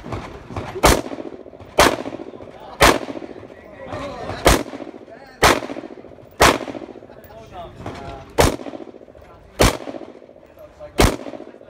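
Nine single pistol shots from a 9mm Glock 19, roughly a second apart, with slightly longer gaps after the third, sixth and seventh shots.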